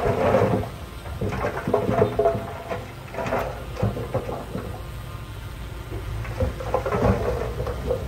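Heavy earthmoving machinery at work: a diesel engine rumbling under load, with irregular surges and clanks.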